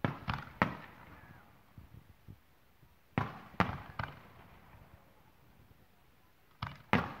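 Fireworks display: aerial shells bursting with loud bangs, each trailing off in echo. They come in three groups: three bangs at the start, three more about three seconds in, and two near the end.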